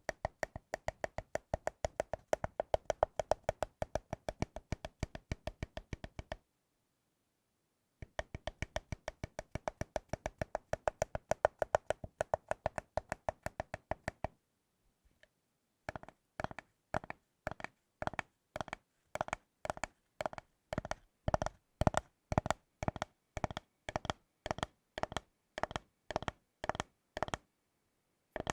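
Tapping on chocolate: quick, even taps about six or seven a second, pausing twice, then slower taps about two a second through the second half.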